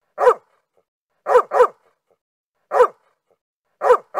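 A dog barking: short single barks about once a second, with two barks close together in a quick pair about a second and a half in. Each bark is cut clean, with dead silence between them.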